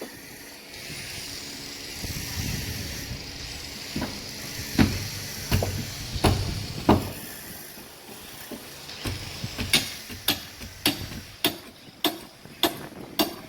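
A series of sharp knocks, a few spaced out in the middle and about two a second near the end, over a steady hiss and a low rumble that fade after about nine seconds.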